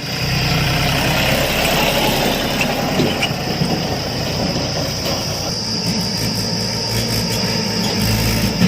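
Heavy diesel machinery running steadily, a low engine hum with a steady high-pitched whine over it.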